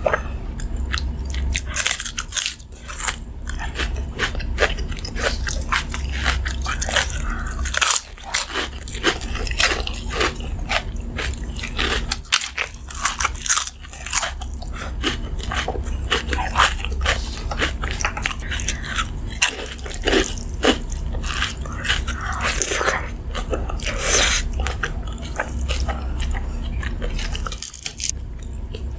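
A person biting and chewing crisp food close to the microphone: many irregular sharp crunches with chewing between them, over a steady low hum.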